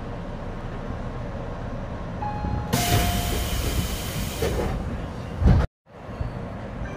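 Tobu 10030-series electric train braking to a stop, with a steady running rumble and a short brake squeal. About three seconds in comes a loud hiss of air from the brakes, lasting about two seconds. Near the end a low thump is followed by a sudden brief cut to silence.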